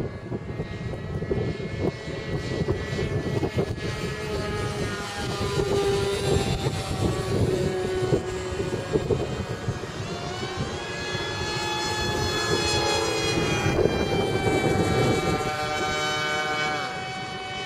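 X Shuttle radio-controlled model plane flying overhead, its motor whining with the pitch sliding up and down as it passes and turns. Wind buffets the microphone underneath.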